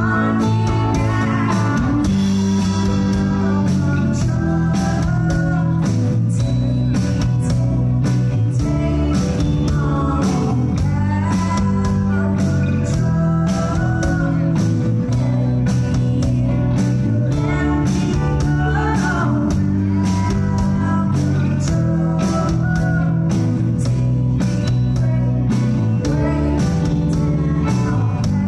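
Live blues-rock band: a woman singing over electric guitar and a steady beat.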